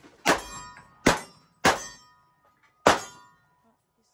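Four sharp gunshots at irregular spacing, roughly a second apart, each followed by a short ringing tail.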